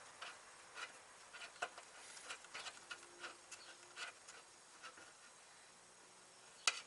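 Faint, irregular light clicks and taps of a steel brake hard line and its flare nut being handled and threaded by hand into the master cylinder port, with one sharper click near the end.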